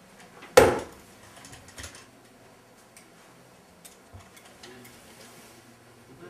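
A single loud knock about half a second in, then faint scattered clicks and small handling noises from a door being eased shut.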